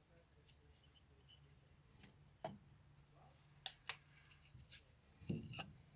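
Sticks of kindling being handled and set down in a wood cook stove's firebox: scattered light wooden clicks and knocks, the sharpest a pair about four seconds in.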